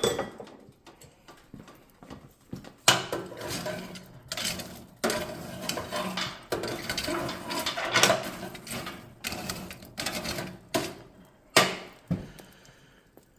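Anthracite coals being stirred in a stove's firebox with a metal tool: irregular rattling and scraping of coal against metal, in bouts with short pauses, starting about three seconds in and stopping shortly before the end.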